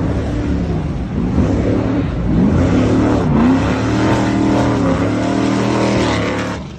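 Cigarette Racing powerboat's engines revving, their pitch rising and falling several times.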